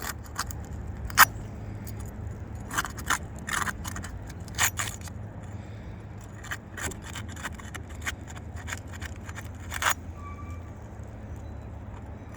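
A metal 5-in-1 tool scraping and clicking against brittle asphalt roof shingles as it is worked flat under them to break them loose. The sounds come irregularly, with sharp clicks about a second in, near the middle and near the end, over a steady low hum.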